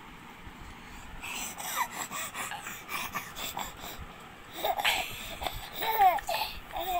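A baby giggling and babbling in short bursts, with rustling and small knocks before the laughter starts about four and a half seconds in.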